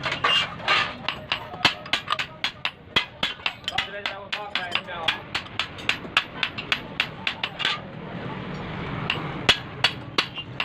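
Hammer blows on metal, about three a second, each with a short ring. They pause briefly near the end, then start again.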